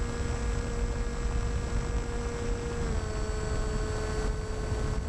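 Wind rushing over the onboard camera of a Skywalker FPV plane, with the steady whine of its Rimfire brushless outrunner motor and propeller; the whine drops slightly in pitch about three seconds in.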